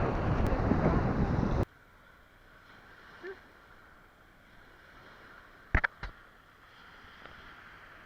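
Wind buffeting the microphone, cut off suddenly about a second and a half in; then quiet, with a faint short chirp and two sharp clicks near the end.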